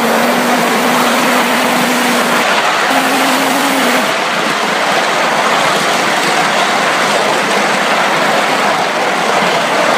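Live-steam miniature Atlantic-type (4-4-2) locomotive running at speed: a loud, steady rush of wheels on rail, exhaust and wind on the microphone. A steady low tone sounds through the first couple of seconds, breaks off briefly, and returns a little higher for about another second.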